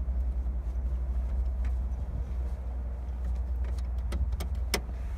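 Scattered clicks and light knocks of hands fumbling under a car's dashboard, reaching for the headlight switch's release button, over a steady low rumble.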